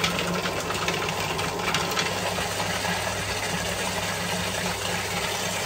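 Electric food processor running steadily, its blade chopping and mixing pesto ingredients (basil, garlic, almonds, parmesan), with some clicking in the first couple of seconds.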